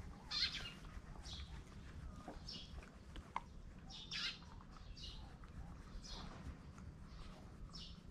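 A small bird chirping again and again in short, high calls, about one a second, over a faint low rumble.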